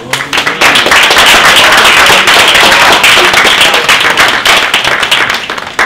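A small room of people applauding, a dense patter of many hands clapping that swells in within the first second and tails off near the end.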